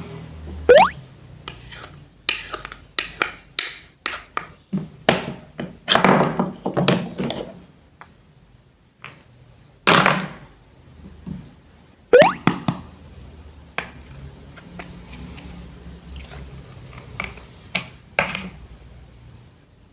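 Toy food and a toy knife being cut and handled: a string of short knocks, taps and scrapes, with a short rising squeak about a second in and another near twelve seconds.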